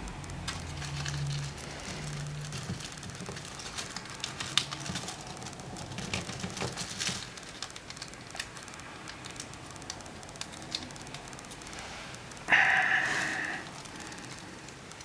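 Origami paper crackling and rustling as it is folded and creased by hand, in many small crackles, with one louder, longer rustle about twelve seconds in.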